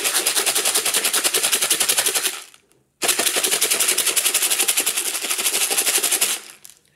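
Dry pasta pieces (macaroni, bow ties and similar shapes) and dried beans rattling rapidly inside a plastic food container with a snap-on lid as it is shaken hard. Two bouts of shaking, broken by a brief stop about two and a half seconds in, with the rattle fading out near the end.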